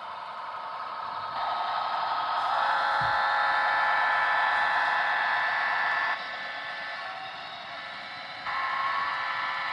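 Model train locomotives running past at close range: a steady whine of their electric motors and gears, made of several steady tones, loudest for about five seconds as the locomotives go by, then quieter as the freight cars roll past, rising again near the end.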